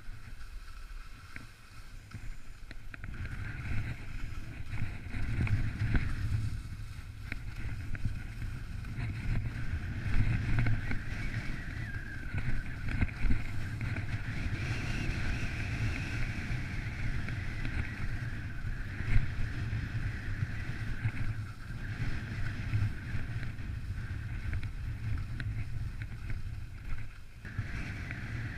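Wind buffeting the camera's microphone in gusts, over the steady hiss and scrape of skis sliding across wind-packed snow.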